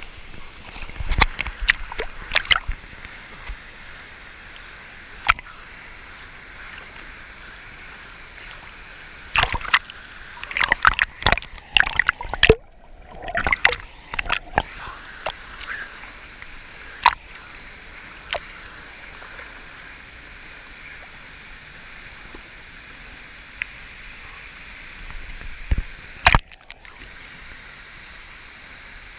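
Steady rush of a waterfall and river, broken by clusters of sharp, close knocks and splashes a little after the start, through the middle and near the end.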